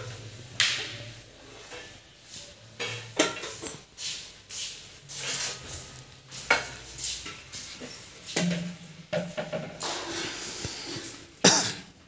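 Stainless steel plates and utensils being handled, with irregular clinks, clatters and sharp knocks.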